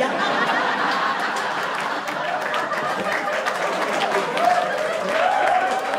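Audience laughing and clapping together: a dense patter of hand claps mixed with many voices laughing.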